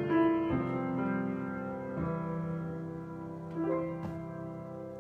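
Piano playing the closing chords of a slow song: a few chords struck and left to ring, fading away.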